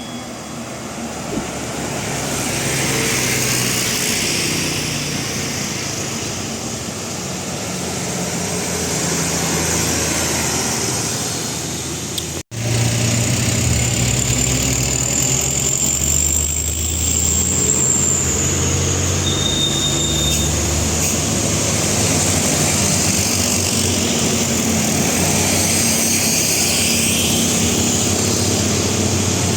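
Heavy vehicles' diesel engines labouring up a steep climb, their low running note shifting as they pass. The sound cuts out for an instant about twelve seconds in, and a louder, closer engine follows.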